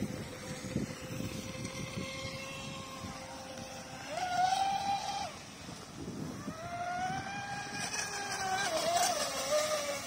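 Radio-controlled speedboat motors whining as the boats race across the water, the pitch rising and falling with the throttle. A louder pass comes about four seconds in, and another from about six and a half seconds, over wind and water noise.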